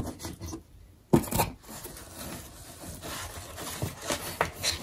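Paper and cardboard being handled on a cardboard puppet stage: a sharp knock about a second in, then scraping and rustling with a few small clicks.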